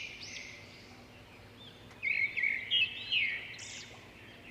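Small birds chirping: short high arched calls fading out at the start, then a quick run of chirps and short trills about two seconds in that lasts about a second and a half.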